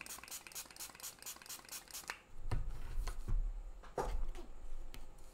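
A plastic watercolour palette being handled to mix paint: a quick run of light scraping strokes, about five a second, then a few dull knocks as the palette is moved and set down on the table.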